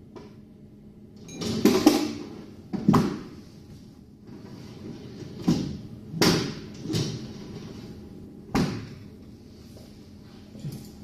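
Commercial refrigerator doors being opened and shut: a series of about six clunks and knocks spread over several seconds.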